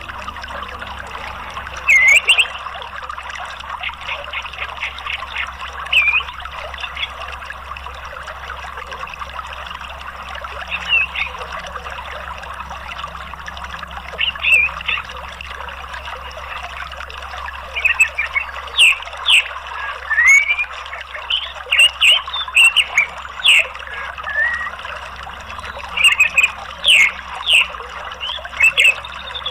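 Orange-headed thrush calls over a steady rush of flowing water. Short chirps and quick sweeping whistles come only now and then at first, then thick and fast in the second half.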